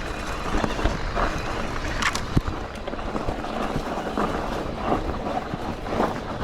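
E-mountain bike rolling over a rough dirt trail: a continuous rattle of tyres and frame with scattered knocks, the sharpest about two seconds in.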